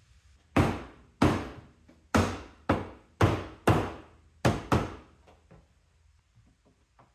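Hammering: eight sharp blows in an uneven rhythm over about four seconds, each with a short ring after it, followed by a few faint taps.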